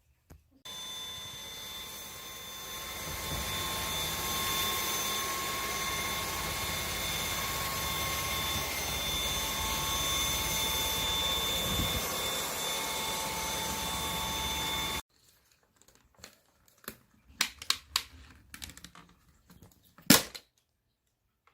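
Cordless vacuum cleaner motor running with a steady rushing noise and a high whine, rising as it spins up and then cutting off sharply about fifteen seconds in. Several clicks and knocks of the cleaner being handled follow, one louder snap near the end.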